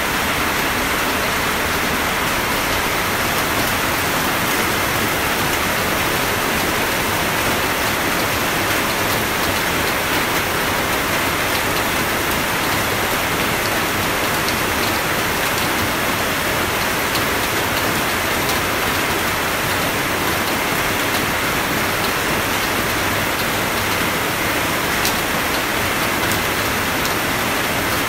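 Steady rain falling, an even hiss with faint scattered drop ticks and no thunder.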